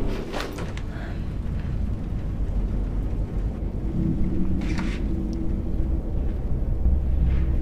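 Deep rumble, slowly getting louder, opening on a sharp hit, with a couple of short hissing swells and a steady low tone coming in about halfway through.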